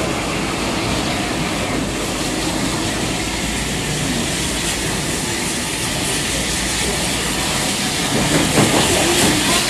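Steam locomotive and its carriages moving slowly along the platform, wheels rumbling over the track, with steam hissing from low down by its wheels, where the cylinder drain cocks are open.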